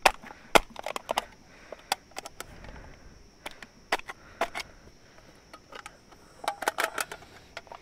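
Aluminium drink can being crumpled and torn apart by hand on a rock, worked with a small hand-held stone: irregular clusters of sharp metallic crackles and clicks.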